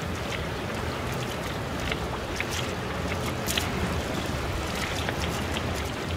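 Strong wind of about 25 knots buffeting the microphone over choppy sea around an anchored small sailboat, a steady rumbling rush. Scattered short ticks and splashes of water slapping around the boat run through it.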